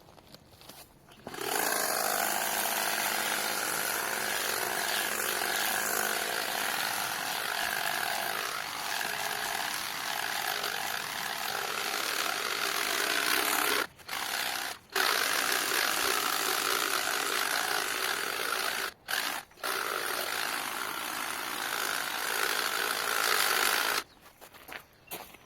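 Powered hedge trimmer running steadily while cutting, starting about a second in, cutting out briefly twice partway through, and stopping just before the end.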